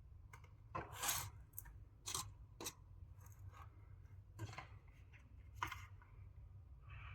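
Short, irregular scraping and snipping noises of handwork, about six of them, the loudest about a second in.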